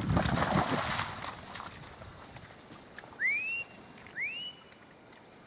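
Two short rising whistles about a second apart, each sliding up and holding briefly: a stock handler's whistle commands to a working Border Collie on cattle. Before them, a rushing noise fades away over the first second and a half.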